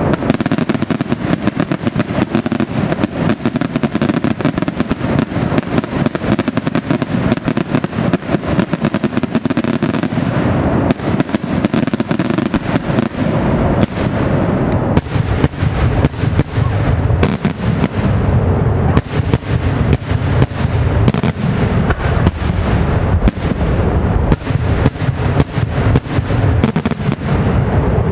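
Daytime fireworks barrage: a rapid, unbroken volley of bangs and crackling from shells bursting overhead. From about halfway through, the bangs grow deeper and heavier.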